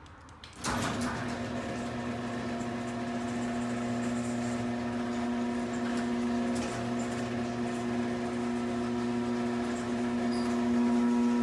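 Chamberlain CG40D chain-drive garage door opener closing the door: the motor starts with a clunk less than a second in, then runs with a steady mechanical hum, louder than the speech around it.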